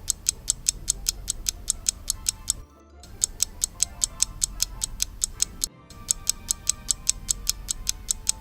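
Countdown timer sound effect: quick clock-like ticking at about five ticks a second over a faint low hum, repeating in stretches of about three seconds with short breaks between them.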